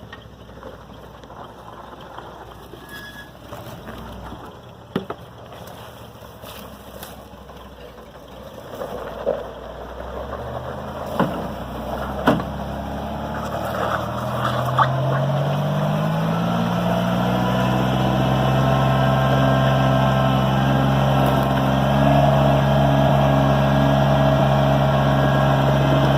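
An off-road vehicle's engine coming closer and getting louder, its pitch climbing slowly and then holding steady at a low, even speed. A few sharp knocks are heard in the first half.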